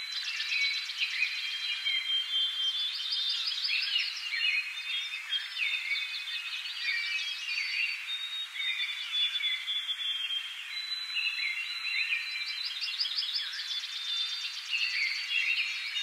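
Morning birdsong: several songbirds chirping and whistling at once in a continuous, overlapping chorus of high notes, with a fast trill coming back every few seconds.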